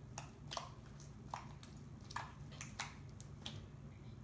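Homemade glue-and-saline slime being squeezed and kneaded by hand, giving short irregular wet pops and clicks, about eight of them.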